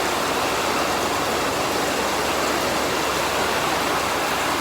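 Steady rain shower falling, an even hiss of rain.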